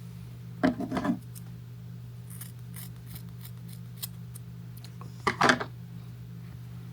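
Scissors snipping in two short bursts of quick cuts, about a second in and again near the five-second mark, over a steady low hum.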